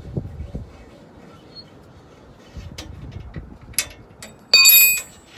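Hand tools working a countersunk bolt out of a steel skid-plate crossmember: faint scraping and a few light clicks, then about four and a half seconds in a loud metallic clink that rings for about half a second.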